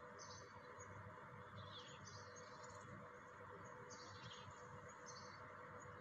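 Near silence: faint room tone with a low steady hum and faint, short high chirps every second or so.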